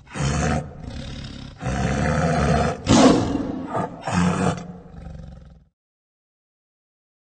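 Tiger roaring: a run of several rough roars, the loudest about three seconds in, stopping about five and a half seconds in.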